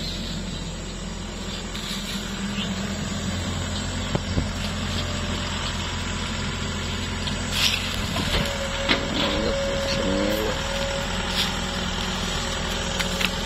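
Diesel engine of a long-reach excavator running steadily while it digs, with a few short knocks about four and eight seconds in and a brief higher whine from about eight to ten seconds.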